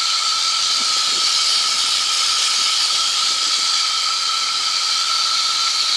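Steady in-flight noise of a P&M QuikR Explorer microlight trike cruising on its Rotax 912ULS: an even hiss of wind with a steady high whine running through it.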